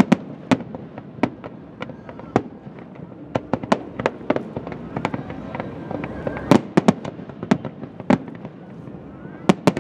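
Fireworks display: aerial shells bursting in a rapid, irregular string of sharp bangs, with the loudest cluster about six and a half seconds in.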